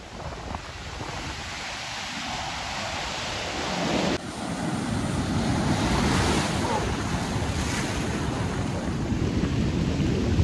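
Heavy storm surf breaking, with churning foam and surging water rushing up the beach, and wind buffeting the microphone. The rush grows louder, with a sudden shift about four seconds in.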